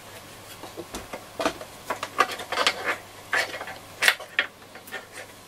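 Small parts and wiring being handled inside a portable radio's open wooden case: irregular light clicks, knocks and rattles, starting about a second in, with the sharpest click a little after the fourth second.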